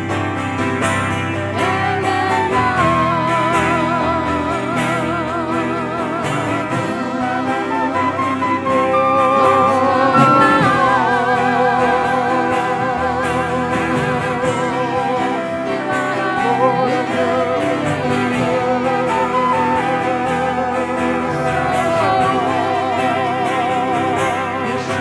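Live worship band music: a sustained melody with heavy vibrato over guitar and held chords.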